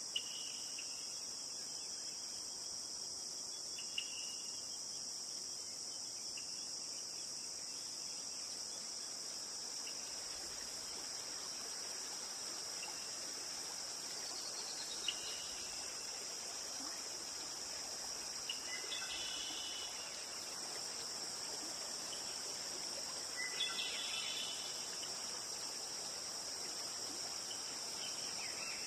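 Steady high-pitched insect chorus, with a few short chirps about fifteen, nineteen and twenty-four seconds in.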